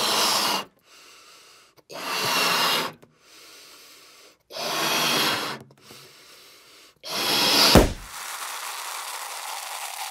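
Cartoon sound effects of a balloon filled with paint being blown up in four long puffs of breath, then a loud pop nearly eight seconds in, followed by a steady fizzing splatter as the paint sprays out.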